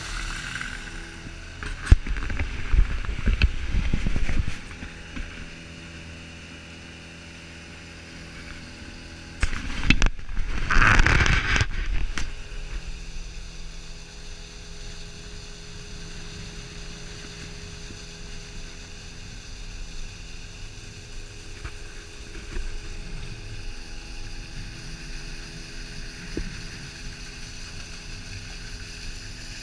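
A motor running steadily, with two louder stretches of rushing noise about two seconds and about ten seconds in.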